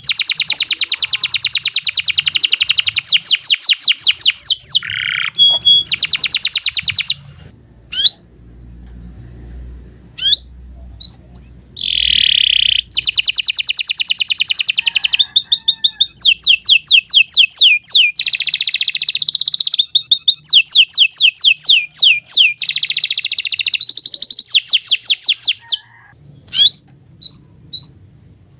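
Canary singing long, rapid, high-pitched trills. The song breaks off about seven seconds in, leaving a few seconds with only scattered short notes, then resumes in long trills and tapers to a few short chirps near the end.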